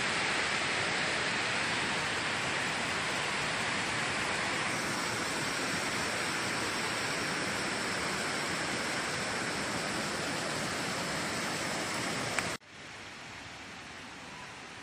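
Steady rush of a waterfall and a stream tumbling over rocks. About twelve and a half seconds in it cuts off abruptly to a much quieter outdoor background.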